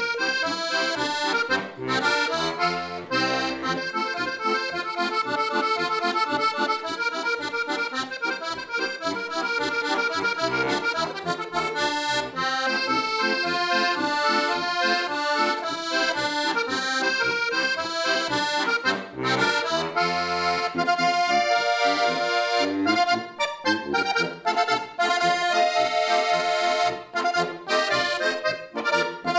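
Suschnig diatonic button accordion (Steirische harmonika) playing a traditional folk tune: a quick melody over chords and bass.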